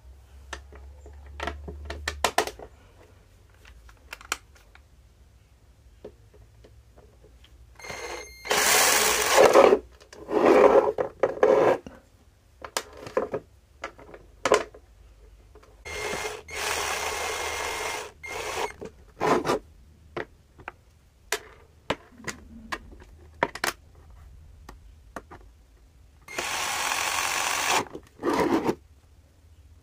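12-volt cordless drill run in short bursts of one to two seconds, about four times, with clicks of handling and the trigger or chuck between runs.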